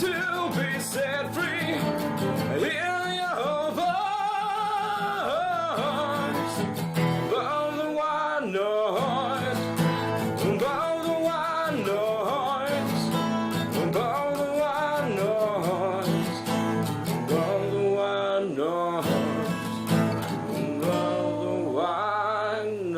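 Acoustic song: guitar playing with a voice carrying a gliding melody over it.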